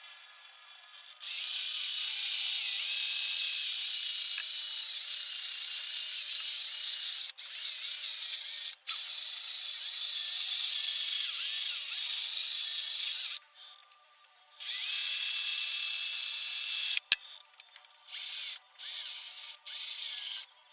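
A small handheld power tool running at a harsh high pitch, held on for long stretches with two brief stops, then switched on and off in several short bursts near the end.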